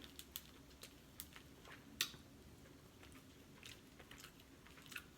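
Faint wet mouth clicks and smacks of someone chewing lobster, irregular and scattered, with one sharper click about two seconds in.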